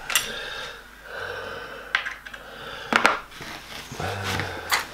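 Aluminium track-saw rails and small metal parts being handled on cardboard: a few clicks and knocks, the sharpest about three seconds in, between softer rustling. A short low breathy hum near the end.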